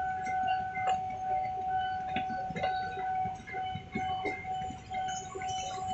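Railway level-crossing warning alarm sounding with one steady tone while an electric commuter train passes over the crossing. A few sharp clacks from the train's wheels come about a second and two seconds in, over a low rumble of traffic.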